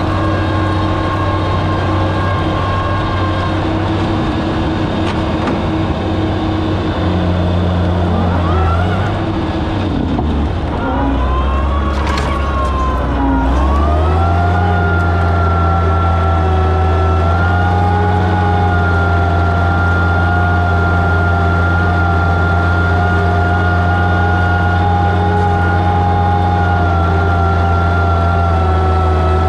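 Oliver 77 tractor's six-cylinder engine running steadily while pulling a plow. About ten seconds in its note sags and wavers, with a clank, as the plow goes into the ground, then it settles into a steady pull under load.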